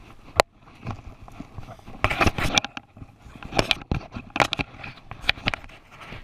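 Irregular sloshing and scraping as a person wades and shifts about in a shallow creek, with rustling close to the microphone. The sounds come in uneven bursts, with a sharp click about half a second in.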